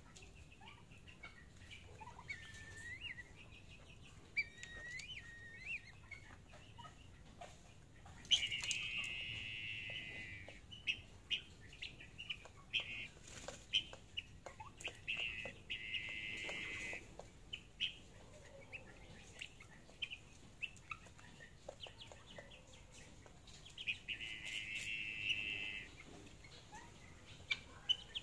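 Young chickens pecking feed from a feeder: sharp tapping pecks and short chirps. A loud, high trill sounds three times, about two seconds each.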